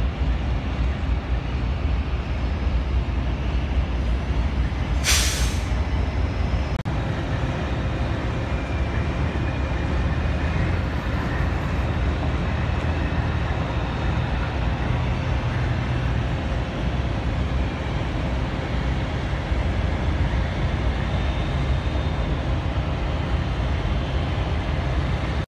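Diesel-electric freight locomotives (Union Pacific EMD SD70M) rolling past close by with a double-stack intermodal train: a steady heavy engine and wheel rumble. About five seconds in there is a short, sharp burst of air hiss from the train's air system.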